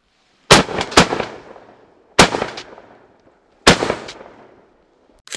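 Four shotgun shots at turkeys, each trailing off over about a second: two half a second apart near the start, then two more about a second and a half apart.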